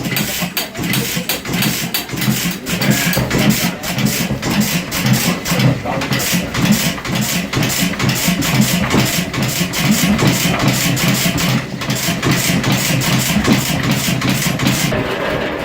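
The sawmill's gasoline engine running just after being started, with a rapid, steady pulsing beat.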